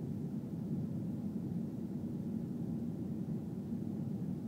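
Steady low rumble of engine and airflow noise inside the passenger cabin of an Airbus A320 descending on approach.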